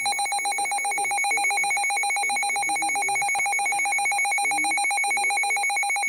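Midland handheld NOAA weather radio sounding its alert for an incoming severe thunderstorm warning: a loud, rapidly pulsing high beep.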